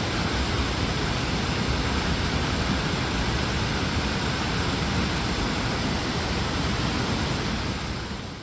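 Tall waterfall: a steady rush of falling water, fading out near the end.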